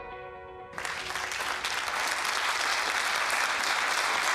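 A studio audience bursts into applause about a second in, with clapping that stays steady and dense to the end. Before it, soft held music from the tribute clip is just ending.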